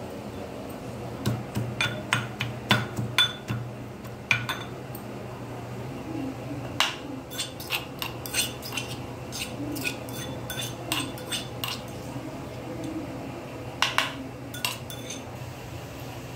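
A kitchen knife chopping green chillies and garlic on a wooden cutting board: irregular sharp knocks in clusters, with a few metallic clinks, over a steady low hum.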